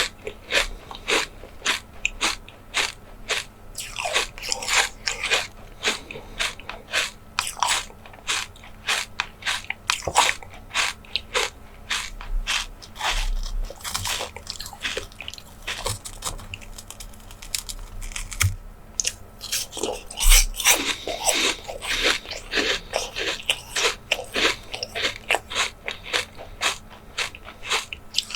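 Close-miked ASMR eating: food being bitten and chewed with crisp crunches, two or three a second.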